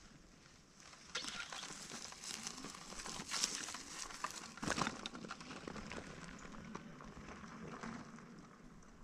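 Faint, irregular crunching and rustling with scattered clicks, the sharpest about four and a half seconds in.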